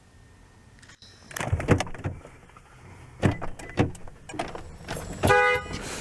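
Knocks and thumps inside a car as people climb in and settle, with a brief pitched tone about five seconds in.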